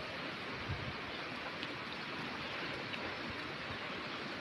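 Steady, even outdoor hiss with a brief low bump about three quarters of a second in.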